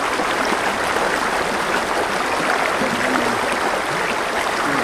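Shallow river running steadily over stones in a riffle.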